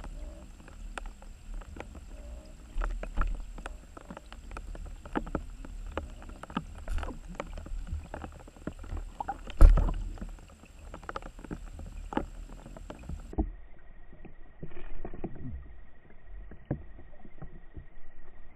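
Underwater sound picked up through a camera housing: a low muffled water rumble with many irregular clicks and knocks, and one loud knock about ten seconds in. The sound turns duller after a cut about two-thirds of the way through.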